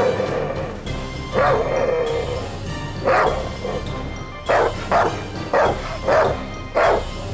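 Background music with a series of short, pitched dog-like yips and barks, coming about twice a second in the second half.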